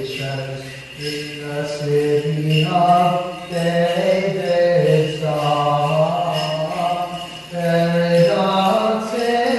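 Byzantine chant sung by a low male voice in long, slowly moving notes, with short breaks about a second in and near the end.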